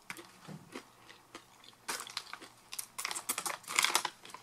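Crunchy sweet-and-salty coated popcorn being chewed. The crunches are sparse at first and come thick and fast from about two seconds in.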